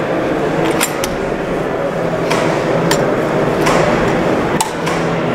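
Sharp clicks and clacks of a gas blowback AK-style airsoft rifle being handled and opened up, its parts knocking about half a dozen times over a steady background hum.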